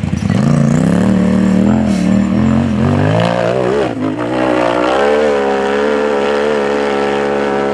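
Rock bouncer race buggy's engine at full throttle, its revs jumping up just after the start and rising and falling in quick wobbles, then held high and steady for the last few seconds.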